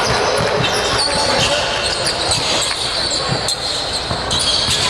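Basketball game in a gym: the ball bouncing on the court over a steady hubbub of voices, with short high squeaks of sneakers about a second in and again near the end.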